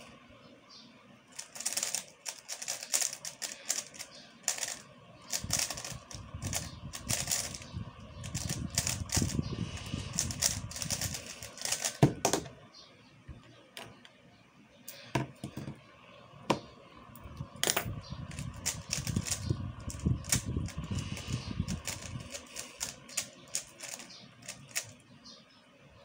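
Plastic 3x3 speedcube turned fast by hand, a dense run of quick plastic clicks and clacks from its turning layers. A sharp knock comes about twelve seconds in, then a short lull, then a second stretch of turning.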